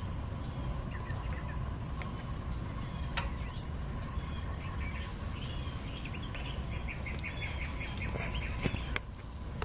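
Small birds chirping over a steady low background rumble, with a sharp click about three seconds in and another near the end.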